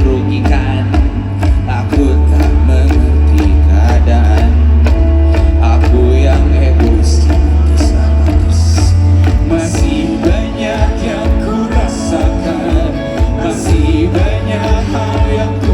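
Live band music with a singing voice, recorded on a phone in the concert crowd. A heavy bass note holds for several seconds, then breaks into a pulsing beat about ten seconds in.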